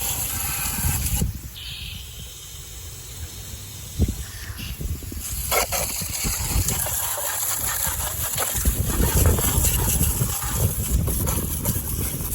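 Wind gusting against the microphone: an uneven rumble that drops off about a second in and builds back up in the second half, with a steady hiss above it.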